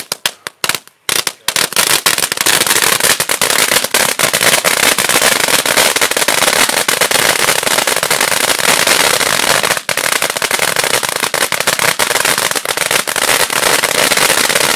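Blackboxx Nova firework fountain burning: a few sputtering pops as it takes light, then a long, dense crackling rush as it sprays sparks and crackling stars, stopping abruptly at the very end.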